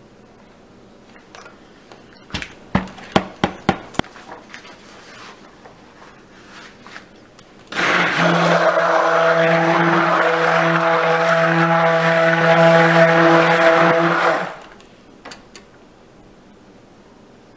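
A stick blender's motor runs steadily for about seven seconds, starting roughly eight seconds in and cutting off sharply, as it mixes coloured cold process soap batter in a bowl. Before it, a quick series of sharp knocks.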